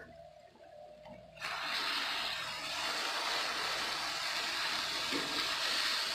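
A short click, then a steady, bright hiss that sets in abruptly about a second and a half in and holds.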